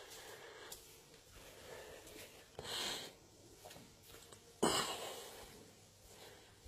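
Two short breath-like puffs of noise close to the microphone, the first about three seconds in and the second, louder and more sudden, about a second and a half later, over faint room tone.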